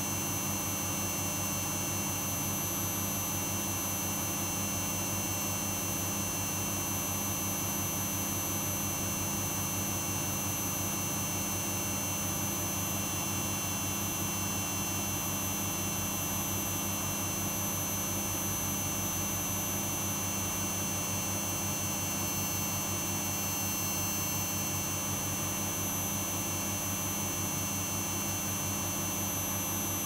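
Hoover Dynamic Next DXOA 68C3R-80 washing machine on an empty spin, its drum turning fast with a steady whine and hum and no change in speed.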